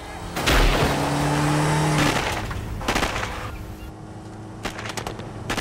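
BMW X5 SUV accelerating hard with its engine running high under a loud burst of gunfire. A second burst follows, and then a few sharp cracks of shots near the end.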